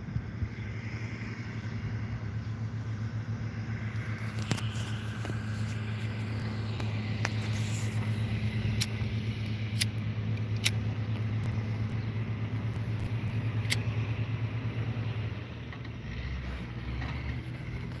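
A steady low engine hum, like a motor vehicle running, that drops away about three-quarters of the way through, with a few sharp clicks over it.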